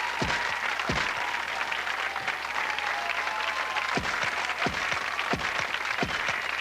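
Studio audience applauding. Music comes in under it with a deep, falling drum thump, first twice near the start and then about every 0.7 s from about four seconds in.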